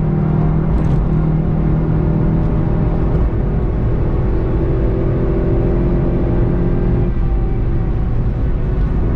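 The VW Golf 7.5 GTI TCR's turbocharged EA888 four-cylinder engine running at speed, heard onboard over road and wind rumble. The car is braking and slowing at the start, and the engine note changes about seven seconds in.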